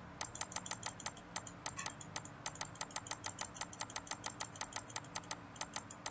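Computer mouse button clicked over and over in a steady run of light clicks, about five a second.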